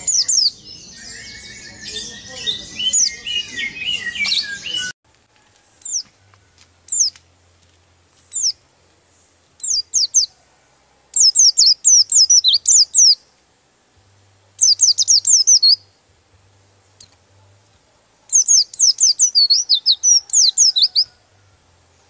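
White-eye (pleci) singing: about five seconds of dense, busy chattering, then after a sudden cut a few single high chirps that give way to three fast rolling runs of high, dropping notes, the 'ngeroll' song.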